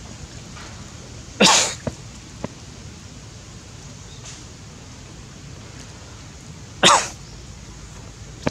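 Two short, sharp sneeze-like bursts, the first about a second and a half in and a little longer, the second about five seconds later, with a few faint clicks between, over a steady background hiss.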